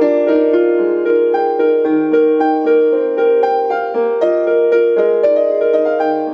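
Solo piano playing a gentle improvised melody, one note after another in the middle register over a soft accompaniment.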